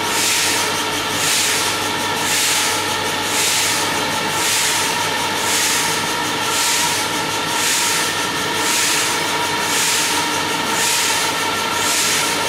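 Industrial meat slicing and shingling line running: a steady machine noise with a few constant tones, and a high hiss that swells and fades in an even rhythm about one and a half times a second.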